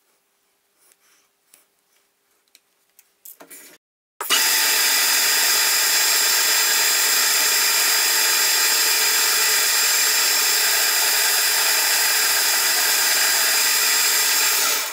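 Metal lathe running with its four-jaw chuck spinning while a new turning insert cuts steel: a loud, steady mix of machine whine and cutting hiss that starts abruptly about four seconds in. Before it, a few faint clicks of metal parts being handled.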